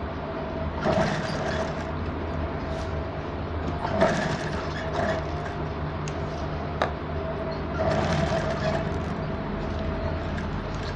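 Table-mounted sewing machine stitching a velvet lace patch onto a kameez neckline: a steady motor hum runs throughout, with louder runs of stitching about a second in, around four seconds and around eight seconds, and a sharp click near seven seconds.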